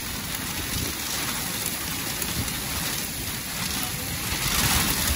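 Heavy rain and hail driven by strong thunderstorm winds: a steady rush of noise that gets louder about four and a half seconds in.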